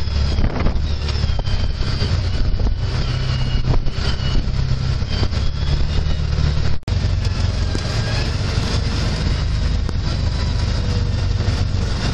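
Vehicle driving slowly over a rough dirt and gravel track: steady low engine and road noise with rattles and knocks from the bumpy surface. The sound cuts out for an instant about seven seconds in.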